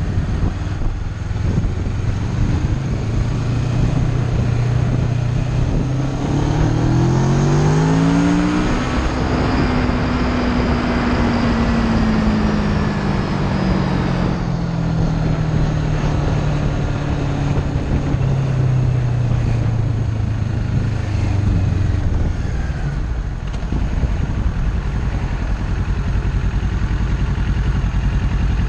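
Kawasaki Ninja 650 parallel-twin engine pulling up through the gears in a few quick rising steps, then a long, gradual drop in revs as the bike slows, over steady wind and road noise.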